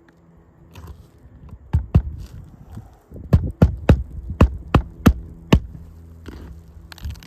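Claw hammer driving roofing nails into asphalt shingles: two blows, then a run of about seven strikes at roughly three a second, over a faint low hum.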